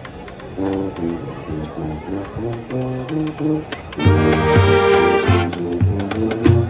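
High school marching band playing: low brass notes first, then about four seconds in the full brass section comes in loud, with drum hits.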